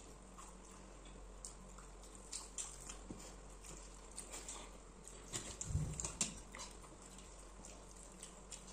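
Quiet eating sounds: chewing and small wet mouth clicks as several people eat rice with their hands. There is a dull thump about six seconds in.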